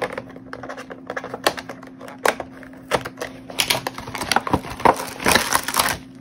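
Plastic packaging crinkling and crackling as a package is opened and a plastic-wrapped diamond-painting kit is pulled out, in quick irregular clicks that grow thicker over the last two seconds.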